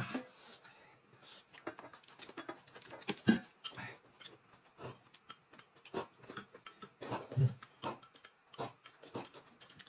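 Close-up eating sounds: noodles slurped and a thin corn porridge sipped from a glass, with chewing, lip smacks and small clicks, coming irregularly. The loudest slurps come about three seconds in and again about seven seconds in.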